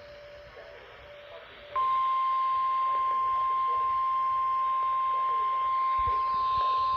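NOAA Weather Radio 1050 Hz warning alarm tone, sent as the weekly test of the station's alarm. It comes on sharply after a short hush about two seconds in and holds as one steady high tone.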